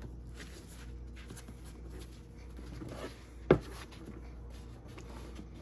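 Gloved hands handling a pair of leather sneakers over a cardboard shoebox: faint rubbing and rustling, with one sharp knock about three and a half seconds in.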